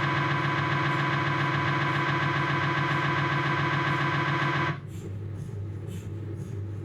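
Philips 1.5 T MRI scanner's gradient coils running a proton-density fat-suppressed sagittal knee sequence: a loud, steady, high-pitched buzzing drone. It stops suddenly about four and a half seconds in as the sequence ends, leaving a quieter low hum from the machine.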